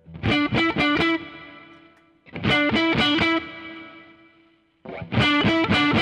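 Electric guitar, a Fender Telecaster, played through the boost side of a Tilt overdrive pedal with a light overdriven tone. The same short lick of a few quick picked notes, each time ending on a held note left to ring and fade, is played three times.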